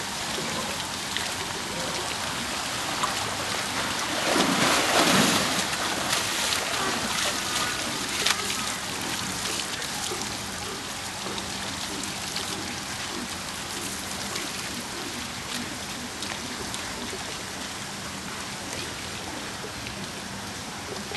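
Water splashing and sloshing as polar bear cubs play in a pool, loudest about four to five seconds in, over a steady watery hiss.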